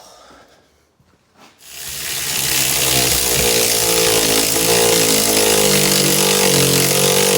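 Handheld electric power tool running steadily under load, such as a grinder or drill working metal; it starts about two seconds in, after a short knock, and keeps going.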